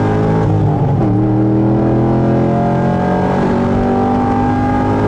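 The LS3 V8 of a 2010 Corvette C6 Grand Sport, heard from inside the cabin, accelerating. Its note climbs, drops with a gear change of the six-speed manual about half a second in, then climbs steadily again.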